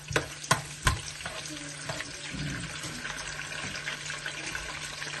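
A bhuna curry frying and being stirred in a pan, a steady sizzle. Three sharp knocks in the first second, the third the loudest.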